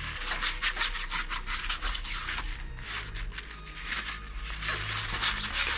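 Old thermal paste being wiped off the metal base of a CPU cooler: quick, repeated back-and-forth rubbing strokes.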